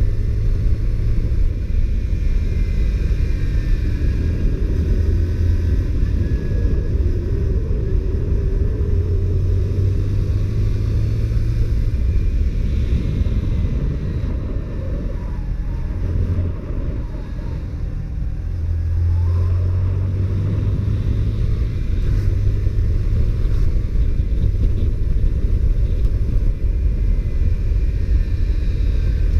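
Honda CBR125R's single-cylinder four-stroke engine running under way with wind noise; the engine note eases off for a few seconds around the middle, then picks up again.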